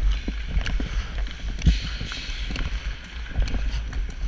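Ice sledge on the rink: its blades scrape and hiss on the ice under a low rumble of the sled carrying the camera, with many sharp taps and knocks as picks and sticks strike the ice while the player pushes along.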